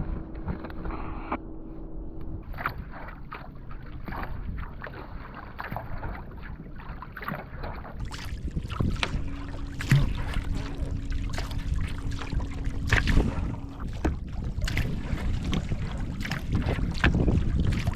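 Kayak paddling: paddle blades splashing and knocking irregularly in the water, with wind rushing over the microphone.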